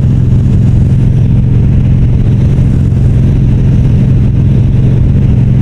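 Harley-Davidson cruiser's V-twin engine running steadily at highway cruising speed, heard from the rider's seat. There is no change in pitch or level.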